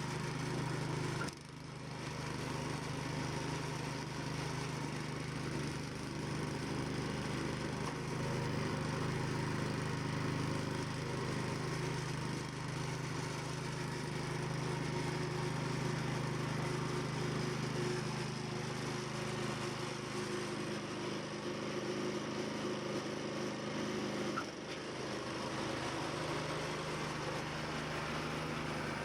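A motor running steadily with a low hum, briefly dipping about a second in and again near the end.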